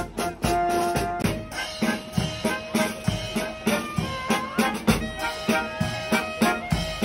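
Live brass band playing outdoors: trumpets, saxophone and sousaphone holding melody and bass notes over a steady marching drum beat.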